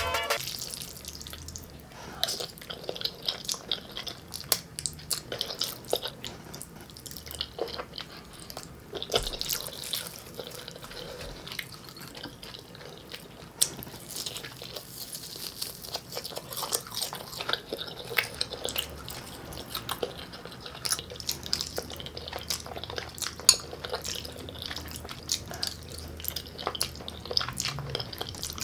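Close-miked ASMR eating of jjajangmyeon (Korean black bean noodles): wet, sticky chewing and mouth smacks, many short irregular clicks.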